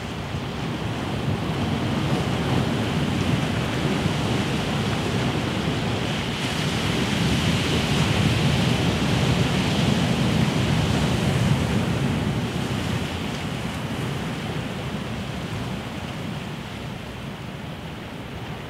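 Sea surf washing against a rocky shore: a steady rushing that swells a couple of seconds in and eases off over the last few seconds.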